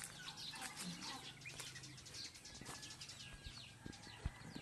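Birds chirping, many short, quick chirps overlapping, with a few soft thumps.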